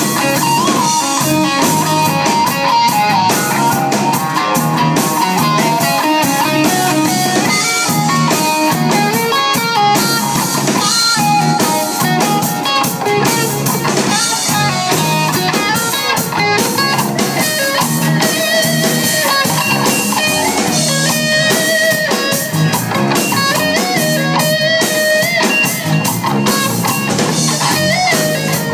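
Loud live rock band playing an instrumental passage: a Stratocaster-style electric guitar plays a lead line with bent, wavering notes over electric bass and a drum kit.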